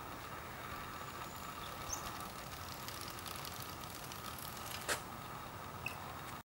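Steady faint outdoor background hiss with no engine running, broken by a single sharp click about five seconds in and a couple of tiny high chirps.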